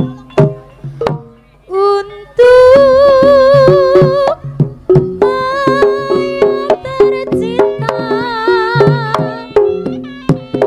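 Live jaranan gamelan music: drum strokes and struck tuned gongs play a fast repeating pattern, joined about two seconds in by a loud melody line with a wavering pitch held over the percussion.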